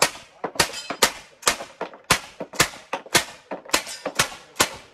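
Replica M1862 .58-calibre Gatling gun firing steadily as it is hand-cranked, about two shots a second, each a sharp crack with a short metallic ring.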